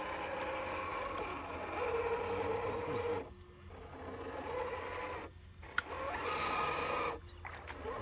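Electric motor and gearbox of a radio-controlled scale crawler truck whining under throttle in three long pulls, each cut off briefly, with a single sharp click between the second and third.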